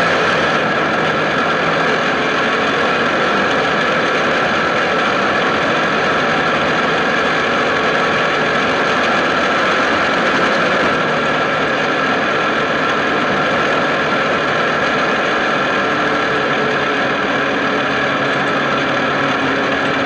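Dune buggy powered by a Suzuki GSX-R 1100 inline-four motorcycle engine, running steadily while the buggy drives along a gravel road, mixed with tyre and gravel noise.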